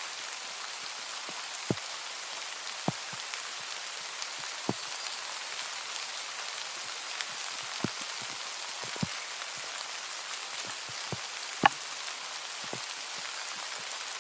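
Steady rain: a dense, even hiss of falling rain, with scattered louder single drops ticking close by, the sharpest about three-quarters of the way through.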